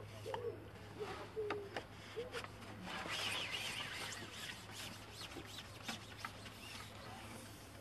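A pigeon cooing a few times in the first couple of seconds. Then a stretch of rubbing with light clicks, from the carbon fishing pole being handled and moved.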